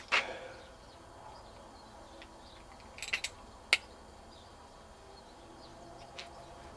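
A metal clank with a brief ring just after the start as the air hammer's steel parts knock together, then a quick rattle of clicks about three seconds in and a single sharp snap shortly after: locking pliers being set and clamped onto the hammer's barrel.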